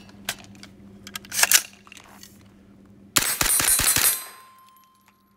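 Sharp metallic clicks from handling a Diamondback DB9R 9mm carbine, then about three seconds in a loud burst of several rapid sharp gunshot cracks lasting about a second, which fades away.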